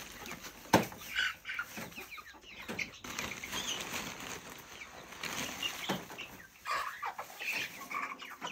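Pine shavings rustling as they are pulled from a plastic bag and scattered into a wire cage, with chickens clucking. A single sharp knock comes about a second in.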